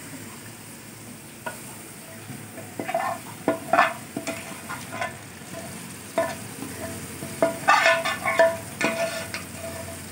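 A metal spoon scraping and knocking against aluminium pans as chicken pieces are scraped into a pot of simmering masala gravy and stirred, the pot ringing with some of the knocks. Under it the gravy sizzles steadily. The scrapes and knocks come irregularly and are busiest near the end.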